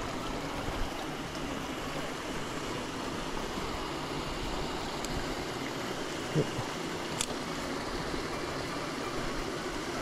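Steady rush of a small mountain stream, with water spilling from a culvert outlet into the pool. A soft thump and then a light click come about six and seven seconds in.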